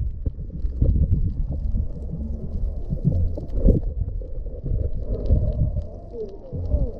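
Muffled, uneven low rumble of moving water and bubbles heard underwater, with scattered small clicks.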